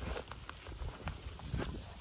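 Footsteps swishing and crunching through tall dry grass, with irregular crackles of stems and a low rumble underneath.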